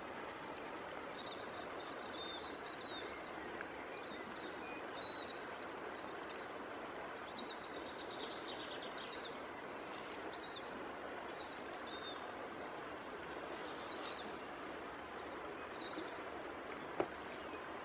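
Small birds chirping repeatedly over a steady rush of river water, with a single faint click near the end.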